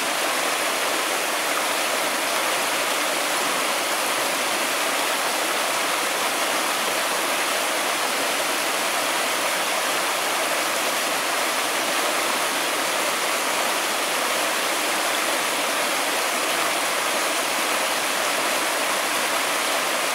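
A shallow rocky stream splashing over stones and pouring down a small cascade into a pool: a steady, even rush of water.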